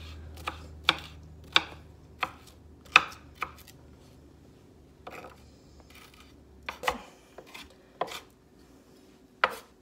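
Kitchen knife chopping green bell pepper on a wooden cutting board: sharp, irregular knocks, a quick run of them in the first few seconds, a pause, then a few more near the end.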